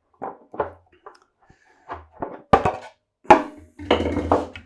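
Knocks and clatter from handling fermenter parts during assembly, with two sharp, loud knocks about halfway through.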